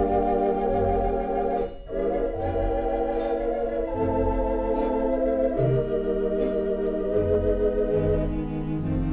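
Barton theatre pipe organ, two manuals and 18 ranks, playing sustained chords with a wavering tremulant over bass notes on the beat. The sound breaks off briefly just under two seconds in, then the chords carry on.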